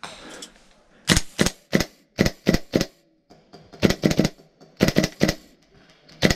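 Airsoft gun firing quick single shots in several short strings of two to four shots, each a sharp crack.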